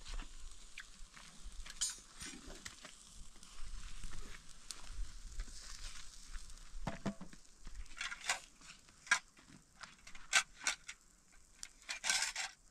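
Food sizzling in a pan, with short scrapes and clicks of a utensil against the pan.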